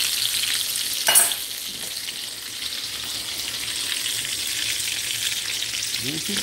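Hot oil sizzling steadily in cast iron skillets as onion rings and hamburger steaks fry, with a brief sharper sound about a second in.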